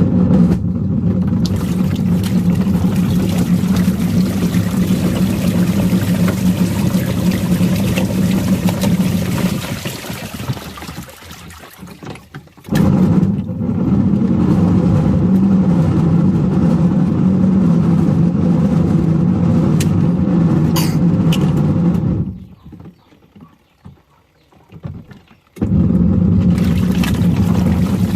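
Washing machine motor running with water churning in the drum, in three runs: it winds down and pauses, starts again, then cuts off and restarts after a few seconds, the stop-and-go of a wash cycle agitating its load.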